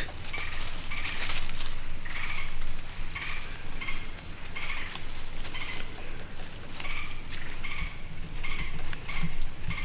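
Whitetail deer walking through dry leaves: a steady series of short crunching footsteps, about two a second.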